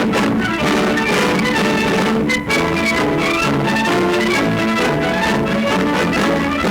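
Brass-led band music with many instruments playing a lively tune, with a brief dip about two and a half seconds in.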